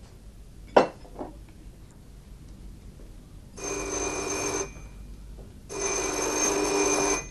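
Desk telephone bell ringing twice, each ring about a second long with a steady metallic tone. There is a short sharp knock about a second in.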